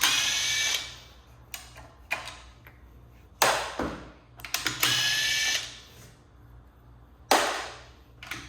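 DeWalt cordless impact driver backing out screws in two short whining runs, one at the start and one about five seconds in. Between them come two sharp hits, about three and a half and seven seconds in, that ring and die away.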